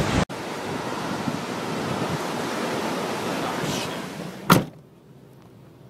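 Steady rushing wind and road noise recorded from inside a moving car, cutting in abruptly. About four and a half seconds in there is a single sharp knock, after which only a faint hiss remains.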